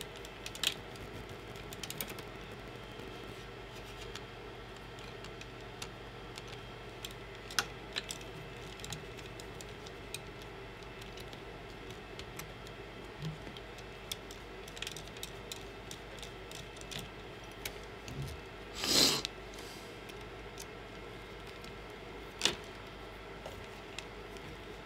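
Small scattered clicks and rattles of wires and plastic connectors being handled at a 3D printer's extruder, over a steady low hum. A louder rustle lasting about half a second comes about three quarters of the way through, and a sharp click follows a few seconds later.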